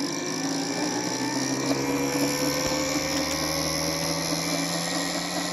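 Electric motor and worm-geared drive of a Scale Model Railways Wabash K5 O scale steam locomotive chassis running, its driving wheels and rods spinning. A steady whirring whine that rises in pitch over the first couple of seconds as it speeds up, then holds.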